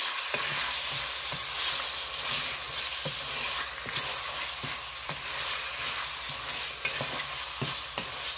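Bone-in beef chunks sizzling in hot oil with onions in a metal pot while a spatula stirs them, scraping and knocking against the pan about once or twice a second. The meat is being seared until its colour changes.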